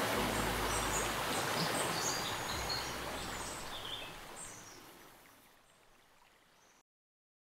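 Running water with short, high bird chirps over it, fading away steadily until it stops near the end.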